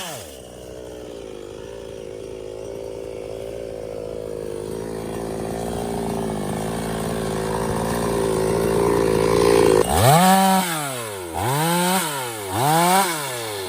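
Stihl two-stroke petrol chainsaw running steadily at a lower speed, slowly growing louder for about ten seconds. It is then revved up and down four times in quick succession.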